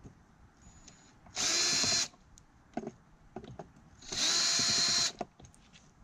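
Power drill-driver running in two short steady bursts, one about a second in and a longer one near four seconds in, backing out the screws that hold an RV cargo-door lock. Faint clicks of handling come between the bursts.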